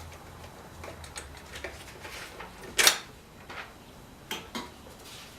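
Hand tools clinking and knocking on metal during work on a car engine: light scattered clicks, one loud metallic clank about three seconds in, and two more knocks shortly after.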